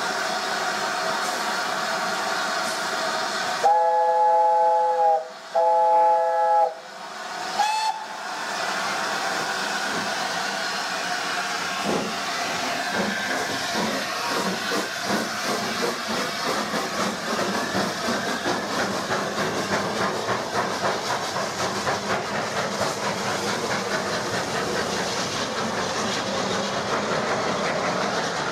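LNER A4 steam locomotive 'Bittern' hissing steam, then sounding two long blasts and a short pip of its three-note chime whistle. The train then pulls away with steam hissing and exhaust beats that quicken.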